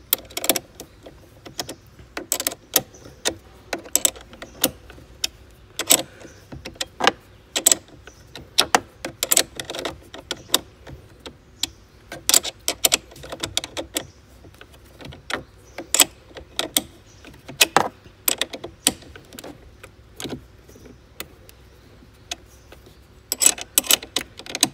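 Metal spanner clicking and clinking on a car battery terminal clamp nut as the clamp is tightened onto the post: irregular sharp metallic clicks, a few a second, with a quick flurry near the end.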